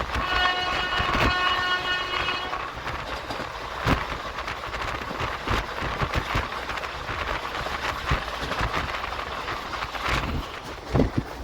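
A train horn sounds one steady, multi-toned blast of about two and a half seconds, then stops. It plays over the continuous running rumble of a moving passenger train, with scattered clicks of wheels over rail joints.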